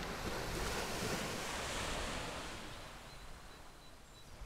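Sea surf washing in: a rush of breaking wave that swells in the first second and fades away over the next few, over a low rumble.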